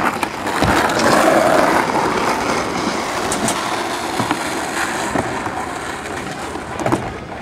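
Skateboard wheels rolling on rough asphalt, a steady rushing rumble, loudest a second or two in, with a couple of sharp knocks from the board.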